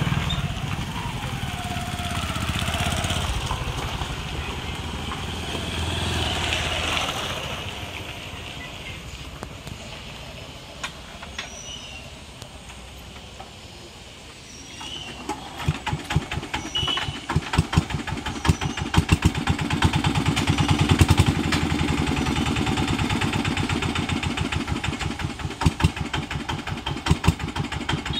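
Motorcycle engines pass in the first few seconds, followed by a quieter spell. About halfway through, an engine starts and runs with a rapid, even beat: the motorised cargo van, overloaded with cartons and stuck on the rail tracks, getting going.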